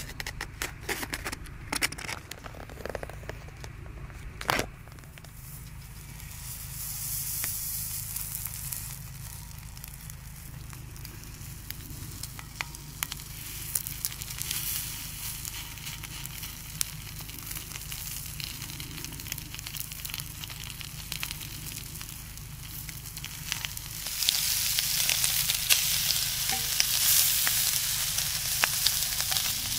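Clicks and crackles of a plastic meat tray being handled and cut open, then mici (skinless minced-meat rolls) sizzling on a hot griddle plate over a wood-burning camp stove. The sizzle grows louder about three-quarters of the way through, as more rolls go on and are turned.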